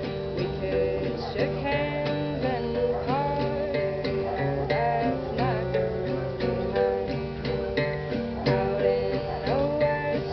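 Acoustic guitar strummed steadily while a singer sings a song, played live.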